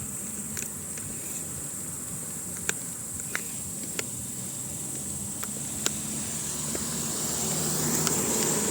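Steady high chirring of insects, with a vehicle passing that swells louder near the end; a few sharp clicks stand out.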